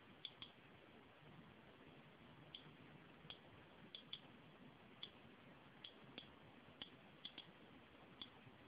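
DP-2 Geiger-counter radiation detector clicking at random intervals, about a dozen short, high clicks over faint hiss. Each click is a particle it has detected from the uranium glass held against it, which is very slightly radioactive.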